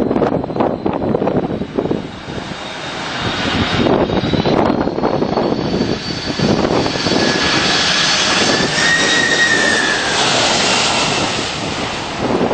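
Jet airplane passing low overhead on its landing approach: the engine rush and high whine build up over several seconds, the whistling tone bending slightly as it goes by, then ease off near the end.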